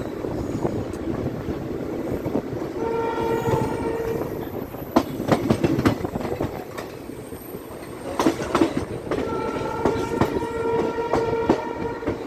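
Train running on the rails with a steady rumble, its horn sounding twice in long blasts, the second one longer and near the end. Between the blasts the wheels clack sharply over rail joints.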